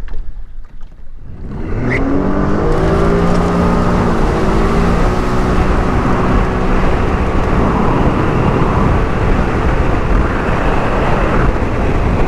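Sea-Doo Fish Pro Trophy personal watercraft's three-cylinder four-stroke engine pulling away about a second and a half in, then running steadily at speed, with a rushing hiss of wind and water.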